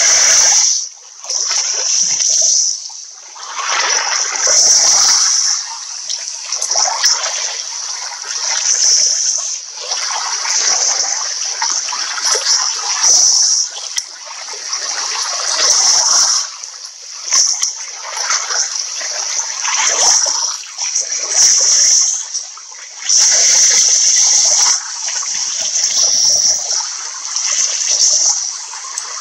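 Lake water splashing and lapping at the shore in irregular surges, with no steady rhythm.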